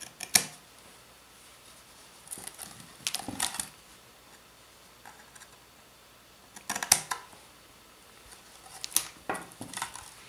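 Scissors snipping the corners off a sheet of ceramic fiber paper: short, sharp cuts in four separate bursts, the sharpest about half a second in and again around seven and nine seconds.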